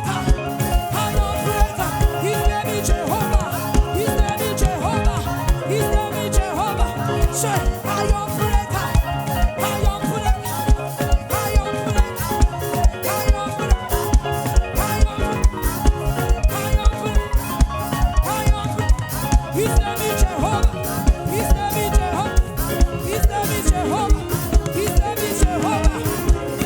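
Live gospel praise band playing an upbeat groove, with a steady, driving drum beat and layered keyboard and percussion, and no clear lead vocal.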